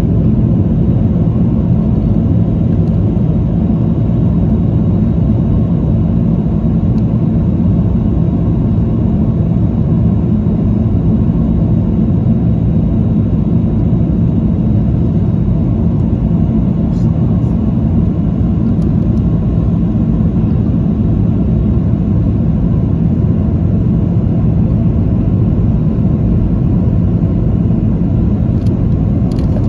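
Steady cabin noise inside a Boeing 737-800 in flight: a dense, even low rumble of airflow and the CFM56 jet engines with a constant hum.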